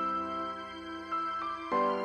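Soft, slow instrumental theme music: sustained chords under a simple stepping melody, with a new chord coming in near the end.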